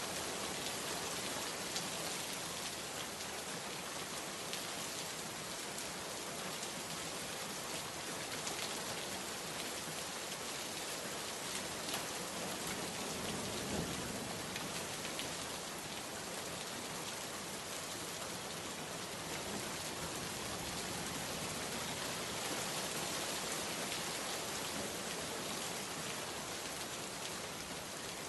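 Steady heavy rain, an even hiss with scattered drops pattering on surfaces, and a brief faint low swell about halfway through.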